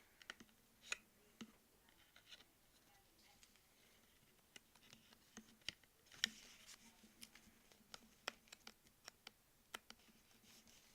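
Faint handling of AirPods packaging by hand: scattered light clicks, taps and scratches of cardboard and plastic, with a sharper click about six seconds in.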